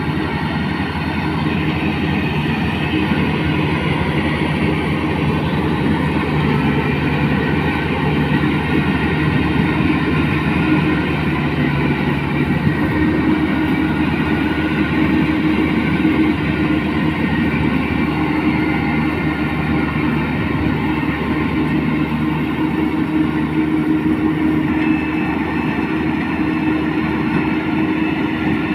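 Rice combine harvester running steadily, its engine and machinery making a continuous loud mechanical hum.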